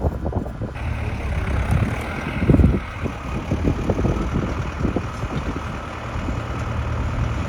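A tractor engine running steadily outdoors, with a low, even engine note under a rough noisy haze.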